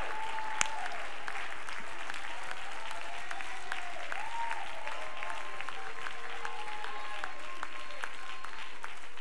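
Congregation clapping steadily in praise, with a few faint voices calling out over the applause.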